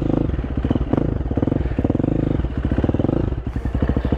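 Single-cylinder supermoto motorcycle engine revving in uneven bursts, the throttle opened and eased several times, as the bike labours up a steep dirt slope.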